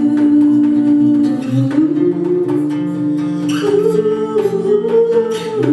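Live acoustic pop song: an acoustic guitar strummed over a djembe's hand beats, with a woman's voice holding long notes that step upward partway through.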